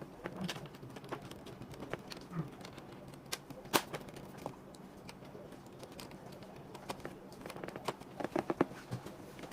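Scattered small clicks and taps of parts being handled and fitted inside a desktop all-in-one PC, with one sharper click about four seconds in and a quick run of taps near the end.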